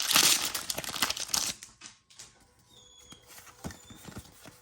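Foil booster-pack wrapper crinkling and tearing open, loud for about the first second and a half, then quieter handling with a few soft clicks.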